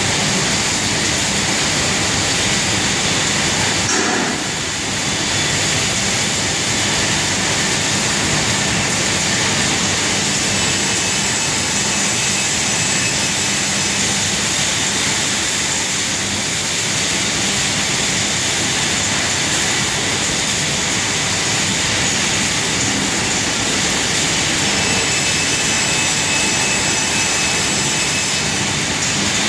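Steady, loud noise of an industrial dust extraction plant running, its extraction fans and inverter-driven trailer fan going, with a brief dip in level about four seconds in.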